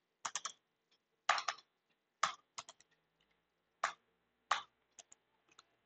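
Computer keyboard keystrokes: scattered single key presses and short quick runs of keys, about eight in all and unevenly spaced, as a word is deleted and retyped.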